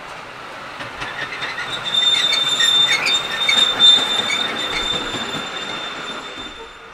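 Miniature railway train hauled by a small replica NZR EC class electric locomotive passing close by on a curve: a steady high-pitched wheel squeal with scattered clicks from the wheels on the track. It is loudest about two to four seconds in, then fades as the train moves away.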